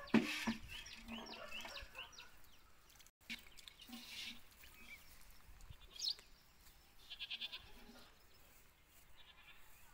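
Animal calls in the background: a run of short rising chirps in the first second and a half, a single rising call about six seconds in, and a quavering call around seven seconds in. A sharp knock sounds just at the start.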